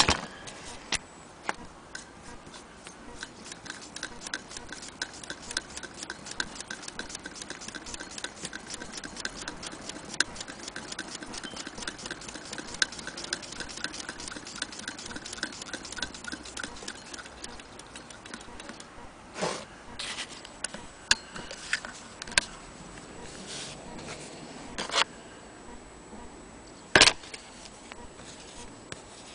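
Willcox & Gibbs sewing machine running, its mechanism ticking rapidly and evenly for about fifteen seconds before slowing to a stop. After that come a few separate clicks and knocks from the machine being handled.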